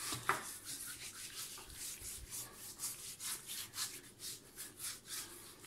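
A hand rubbing coarse salt and paprika into a raw pork loin on a wooden cutting board, in quick, gritty back-and-forth strokes, about three or four a second.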